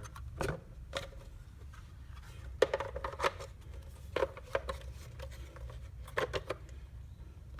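Plastic parts of a HomeLink overhead-console module being handled and pressed back together: scattered light clicks and scrapes, over a low steady hum.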